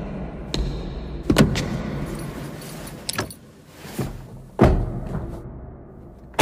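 A person climbing into a Suzuki Swift through the open driver's door: a series of sharp knocks and clicks from the door and cabin, with a light metallic jingling. The loudest knocks come about a second and a half in and again a little after four and a half seconds.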